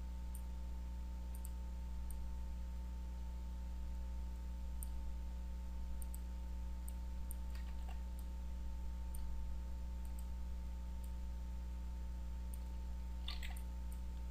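Faint computer mouse clicks, scattered and sparse, over a steady low electrical hum on the recording. The most noticeable clicks come about 8 seconds in and near the end.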